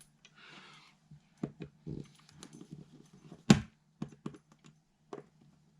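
Light clicks and taps of a hand tool working at a paint-caked wall outlet, with a short scrape near the start and one sharper knock about three and a half seconds in.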